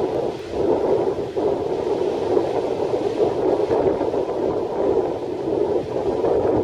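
Steady, dull rushing noise of strong wind and breaking surf, with no distinct events.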